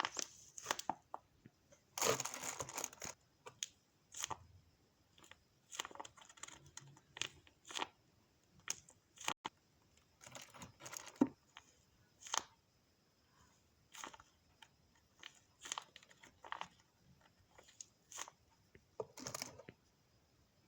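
Packing materials being handled: plastic and paper crinkling and tearing in a string of short rustles and rips, with a longer rip about two seconds in and another near the end.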